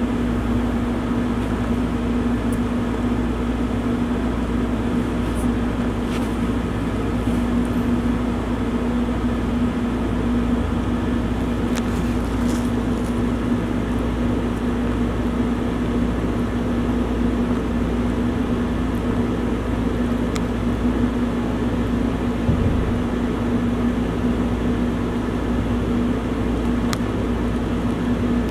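Steady machine hum with one strong low tone that holds throughout, and a few faint clicks.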